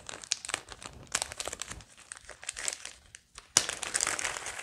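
Small packaging crinkling and rustling as capacitors are handled and picked out of their packet, with a sharp click about three and a half seconds in.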